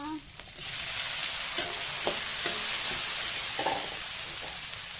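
Tomato pieces dropped into a wok of hot oil with frying shallots and green chillies: about half a second in the oil bursts into a loud sizzle that keeps going, with a few faint clicks over it.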